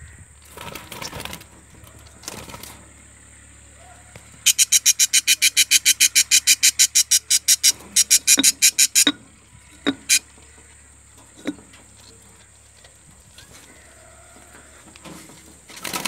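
Budgerigar inside a clay nesting pot giving a rapid run of harsh, evenly repeated calls, about seven a second, for around four seconds from about four seconds in, then a couple of single calls. Some handling rustle comes before it.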